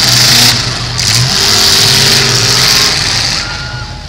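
Demolition derby cars' V8 engines revving hard under load as the cars shove against one another, a loud rough engine noise that eases off a little near the end.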